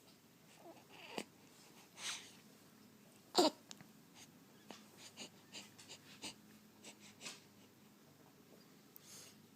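Faint, irregular noises from a sleeper: wheezy breaths and snorts, with one louder, falling whine-like sound about three and a half seconds in, then a run of soft, quick clicks and sniffs.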